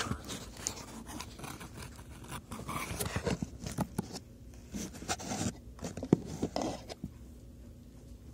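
Close rustling and scraping of fabric and a phone being handled right at its microphone, a run of short rubs and clicks while a costume is put on. It dies down about seven seconds in.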